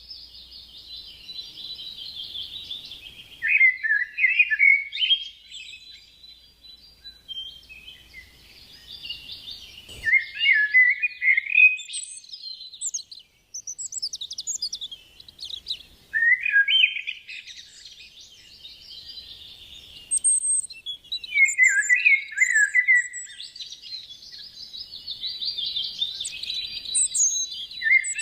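Rainforest birds singing in phrases that repeat every few seconds, each a high, busy chatter dropping to a run of lower notes, with scattered higher chirps between them.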